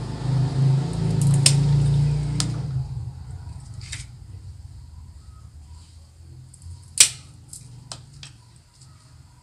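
Bonsai cutters snipping dry deadwood twigs from a santigi bonsai: a handful of sharp clicks, the loudest about seven seconds in. A low rumble runs under the first three seconds.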